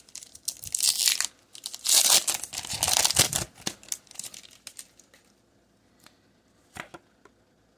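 Foil Pokémon booster pack wrapper crinkling and tearing open in the hands for about three seconds, then a few faint ticks as the cards are slid out.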